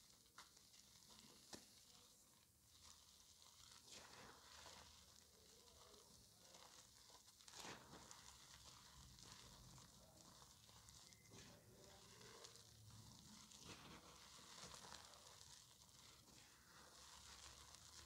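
Faint crunching and crumbling as hands crush soft blocks of re-formed gym chalk into powder, with scattered sharper crunches, the loudest about eight seconds in.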